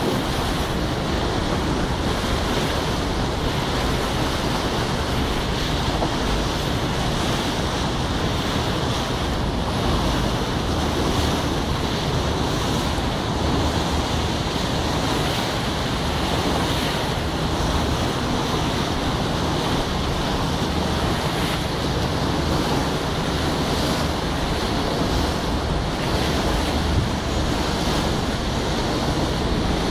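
Steady rushing noise of wind buffeting the microphone, mixed with the wash of water along a riverboat under way.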